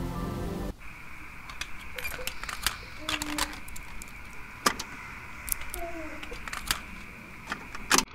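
Plastic clicks and rattles of a portable cassette radio's tape deck being handled: the cassette door and buttons clacking under a child's fingers, the sharpest click near the end, over a faint steady hiss. Music cuts off abruptly less than a second in.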